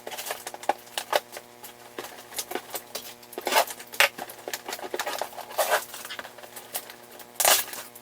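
Plastic packaging being handled while an action figure is worked free of its ties: a string of sharp clicks and crinkles, with louder rustles about three and a half, five and a half and seven and a half seconds in.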